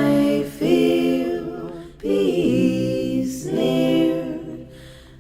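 A cappella singing: voices holding long, sustained notes in several phrases, one after another.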